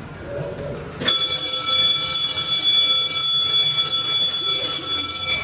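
Electric bell ringing loudly and steadily for about four seconds, starting suddenly about a second in and then cutting off.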